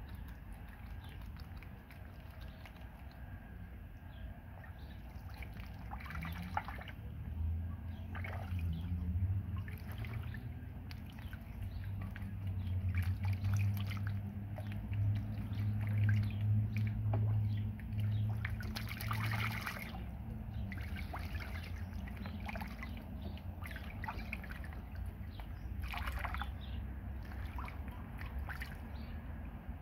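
Two ducklings splashing and dabbling in a shallow plastic wading pool: small scattered splashes, drips and trickles of water throughout. A low steady hum runs underneath, loudest through the middle stretch.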